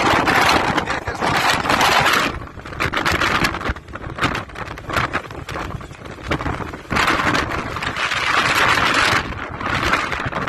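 Strong wind buffeting the microphone in loud, rushing gusts. The gusts are strongest in the first two seconds and again from about seven to nine seconds in.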